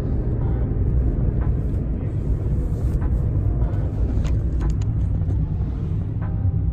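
Steady low rumble of a car on the move, heard from inside the cabin, with a few faint clicks about four to five seconds in.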